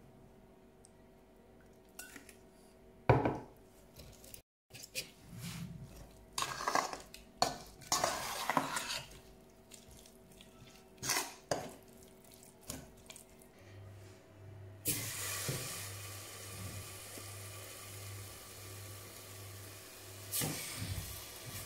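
A metal spoon stirring chicken pieces in an oily herb marinade in a stainless steel bowl: irregular scrapes, clinks and wet squishing. About two-thirds of the way in, a steady rushing background noise with a faint pulsing hum sets in, and near the end chicken pieces clunk into a stainless steel pot.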